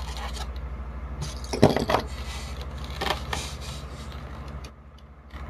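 Clicks, knocks and scrapes of airsoft rifle parts being handled and fitted together, loudest in a short cluster about a second and a half in, over a steady low electrical hum.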